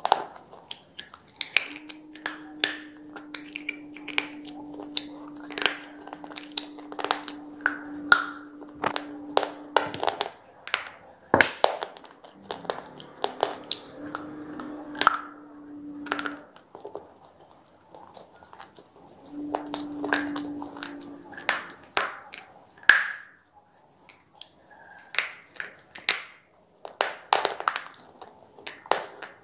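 Close-up crunching and chewing of big square pieces of slate: repeated sharp, brittle cracks as pieces are bitten off and ground between the teeth.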